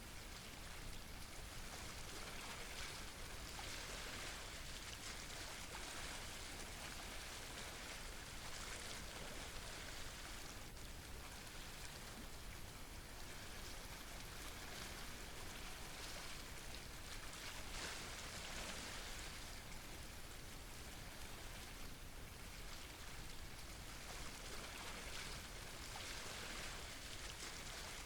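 Faint, steady hiss of water, swelling a little every few seconds.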